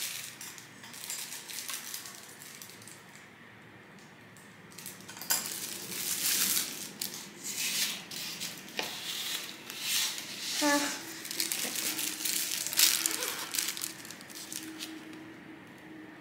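Kitchen utensils and dishes clinking and clattering on a work surface in irregular, quick bursts, with the busiest stretch in the middle.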